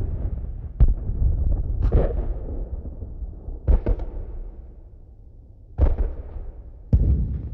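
Explosion sound effects: a series of about five sudden blasts, each followed by a low rumble that fades over a second or more. The tail of an earlier blast is still dying away at the start.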